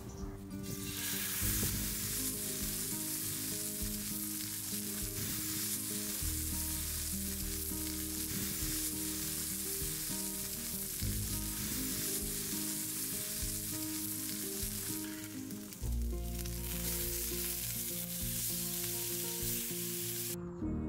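Beef steak, asparagus and garlic sizzling in hot oil in a frying pan. The sizzle starts about a second in, drops off briefly near the 15-second mark, then resumes.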